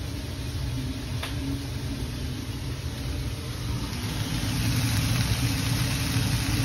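Chicken, peppers and onions in tomato puree cooking in a frying pan, a steady sizzle over a low hum, the sizzle growing louder about four seconds in.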